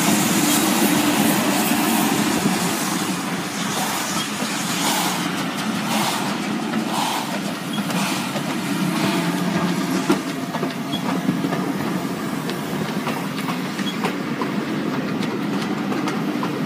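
West Country class steam locomotive 34027 Taw Valley passing close by, followed by its train of coaches rolling past, with an irregular clatter of wheels over the rail joints. It is a little louder in the first few seconds and then steadies as the carriages go by.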